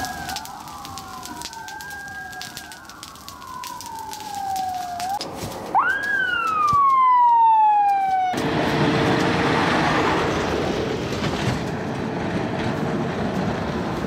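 Several emergency-vehicle sirens wailing at once over scattered crackling. Their pitches sweep up and down and overlap, and a loud one rises sharply near the middle and then falls. About eight seconds in the sirens cut off suddenly and a loud, even rushing noise takes over.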